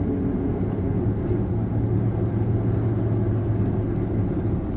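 Steady low drone of engine and road noise inside a car moving slowly in heavy traffic, with a low hum running through it.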